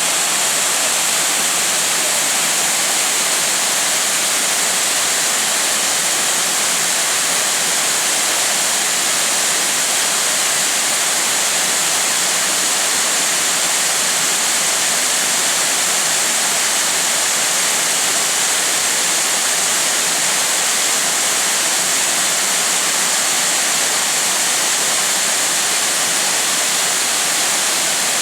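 Five-tiered waterfall with a 25 m drop, water falling in a steady, unbroken rush.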